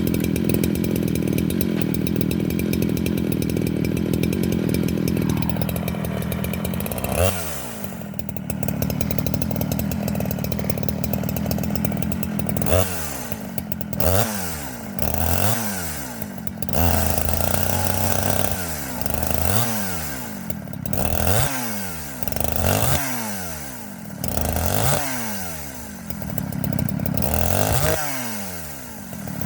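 Two-stroke chainsaw running at a steady high engine speed, then from about six seconds in revved down and back up again and again, every couple of seconds.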